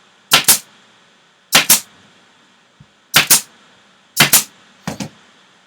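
Staple gun firing staples through fabric into a wooden board. There are four sharp double-clack shots and a weaker fifth near the end, roughly one a second.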